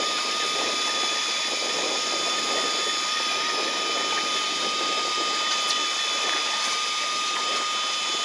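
Electric fishing reel's motor whining at one steady pitch as it winds in a hooked fish under load.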